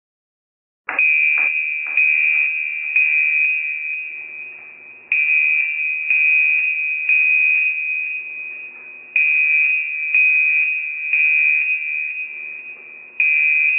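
Electronic alarm tone sounding an alert of suspicious activity detected: a high, steady beep, struck anew about once a second and fading between strikes, with short pauses. It starts about a second in.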